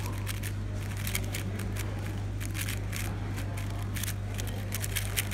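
Plastic 4x4 speedcube being turned fast by hand during a solve: quick, irregular runs of light clicks and clacks as the layers snap round, over a steady low hum.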